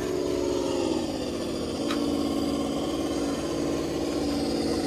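Electric motor and gear drivetrain of an RC rock crawler whining steadily as it climbs over rock, the pitch dropping about a second in as the throttle eases. A light click about two seconds in.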